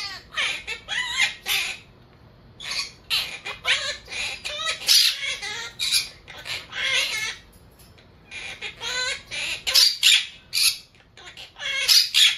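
Monk parakeet chattering and squawking in strings of short calls, with brief pauses about two seconds in and again around eight seconds.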